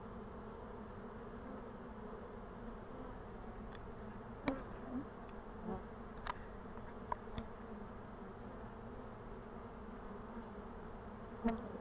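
Honeybees buzzing steadily in an opened hive, a continuous low hum. A few short sharp clicks sound over it around the middle.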